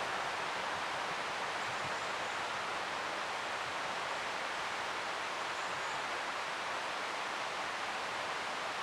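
Steady, even rushing noise of the outdoor background, with no rise, fall or distinct events.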